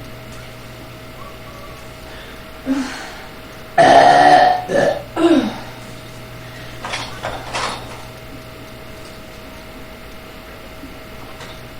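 A man burping a string of times after drinking a large bottle of carbonated Dr Pepper soda. The loudest and longest burp comes about four seconds in, followed quickly by two shorter ones, and a few quieter burps come a couple of seconds later.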